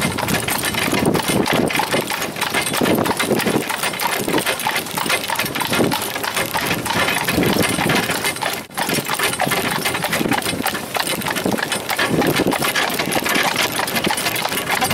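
A horse-drawn cart rolling along a paved road: a continuous rattle and rumble from the cart, with the horse's hoofbeats on the tarmac.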